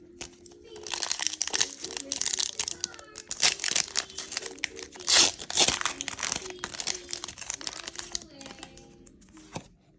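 Foil booster-pack wrapper crinkling and tearing as it is handled and opened, a dense run of crackling from about a second in until near the end, over quiet background music.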